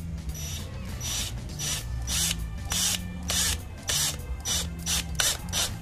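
Cordless drill driving a screw into a plastic motorcycle fender extension, the drill run in repeated short bursts.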